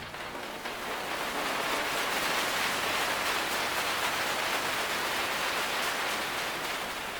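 A steady, even hiss of noise with no tone in it, swelling in over the first second after the music stops and easing off slightly near the end.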